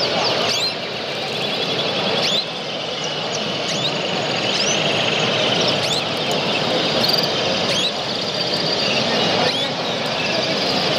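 Canaries chirping in short, sharply rising notes about once a second, with a few brief trills, over a steady background hubbub of many voices.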